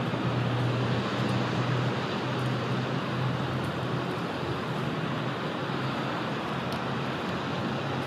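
Steady background rumble of distant road traffic, with a low hum that swells and fades.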